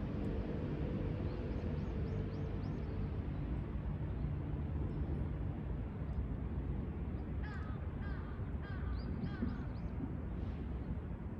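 A bird gives a quick series of about six short calls a little past the middle, over a steady low outdoor rumble. Faint high chirps from small birds come early on.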